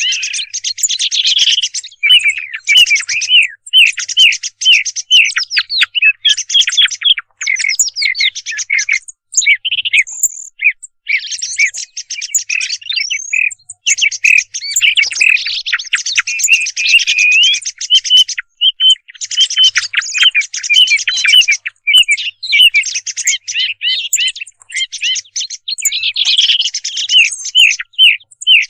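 Thrush calls played as a hunting lure: a loud, dense, almost unbroken chatter of short chirps and whistles, pausing only briefly a few times.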